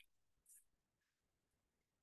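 Near silence: room tone only, with one faint, brief high-pitched sound about half a second in.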